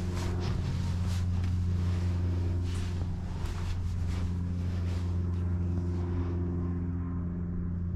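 A steady low mechanical drone like an engine running, holding one pitch throughout. Light knocks and taps of gloved hands and feet on a steel freight wagon's grab rails and grated end platform come through in the first half.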